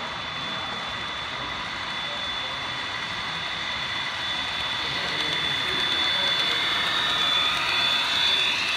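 Model Southern SD40 diesel locomotives pulling a coal train along the layout: a steady running noise with a thin high whine that grows louder as the train approaches and passes close by.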